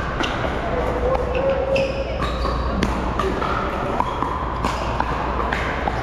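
Pickleball paddles hitting a hard plastic ball in a fast doubles rally: a quick series of sharp pops, about two a second, with short squeaks of shoes on the court between hits.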